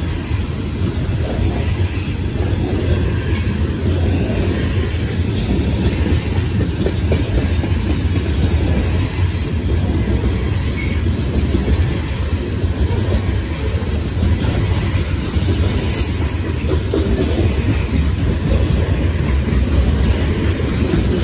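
Loaded coal hopper cars of a freight train rolling past: a steady, deep running noise of steel wheels on the rails.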